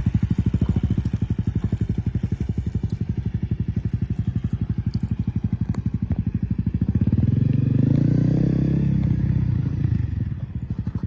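Dirt bike engine chugging at low revs with an even beat, swelling louder for a few seconds past the middle as the throttle is opened, then easing back.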